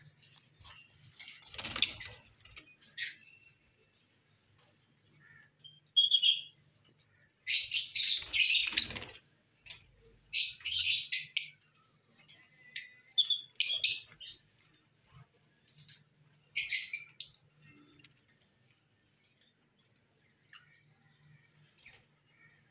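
Caged lovebirds giving shrill chirps and squeaky chatter in short bursts, with quiet gaps between.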